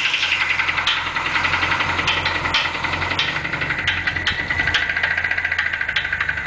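Ford Capri engine running steadily with a fast, regular knocking, an unexplained noise whose cause the owner does not know.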